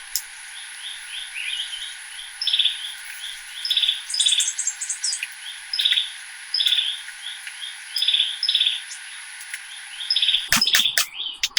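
Small birds chirping: a short, repeated call phrase about once a second, with a brief higher trill about four seconds in.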